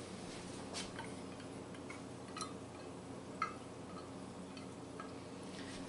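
A few faint ticks and light taps as a silicone spatula scrapes ketchup out of a stainless steel measuring cup into a glass bowl, over a low steady hum.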